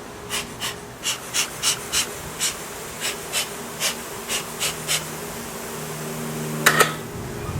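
Honey bees buzzing steadily, overlaid by a run of short, breathy puffs of air, roughly two a second, with a louder double puff near the end.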